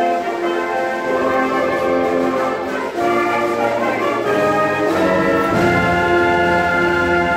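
School concert band playing, brass to the fore, in held chords that change every second or two.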